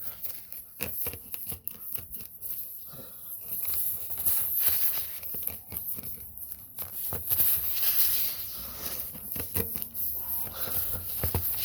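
Spiral rasp tool from a tyre plug kit being worked in and out of a tyre's puncture hole, with irregular scraping and grating strokes as it reams the hole bigger through the rubber and steel belt wires, preparing it for a plug strip.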